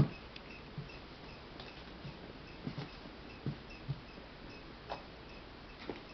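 Handling of a photo album: a sharp knock right at the start, then scattered soft thumps and light rustling as the pages are leafed through.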